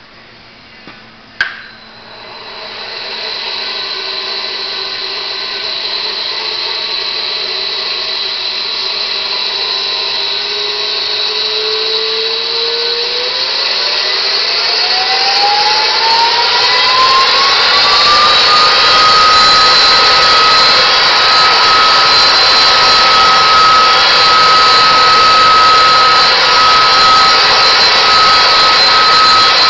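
Spindle motor of a Scorpion arm-mounted machine head, switched on with a click and then running with a loud steady whir. Partway through its whine climbs in pitch over several seconds as the speed is raised, then holds at a steady high pitch.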